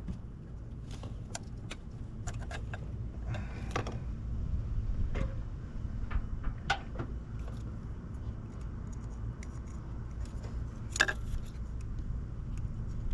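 Scattered clicks, knocks and rattles of hands working on the engine, unplugging and pulling off an ignition coil, over a steady low rumble; the sharpest knock comes about eleven seconds in.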